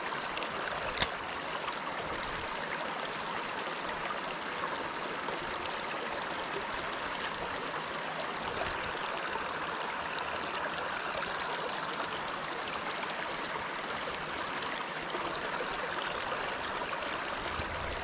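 Steady rush of a shallow trout stream running over rocks, with one sharp click about a second in.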